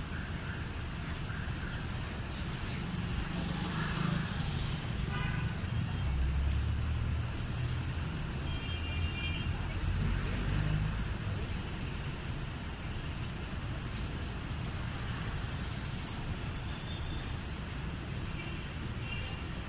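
Street traffic: engines of passing road vehicles running steadily, with a louder low rumble from a vehicle going by in the first half and a brief high-pitched tone near the middle.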